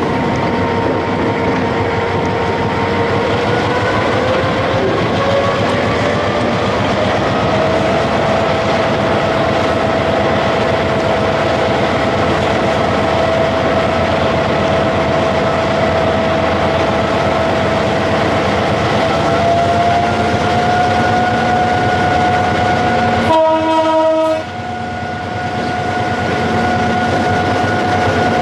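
Sri Lanka Railways Class M6 diesel locomotive under way, heard from its own walkway: a loud engine and running noise with a steady whine that rises in pitch twice, along with wheel-on-rail clatter. Late on comes one short horn blast of just over a second.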